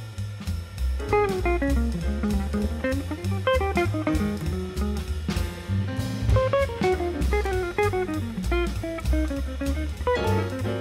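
Background music: plucked guitar melody over a steady drum beat, in a light jazzy style.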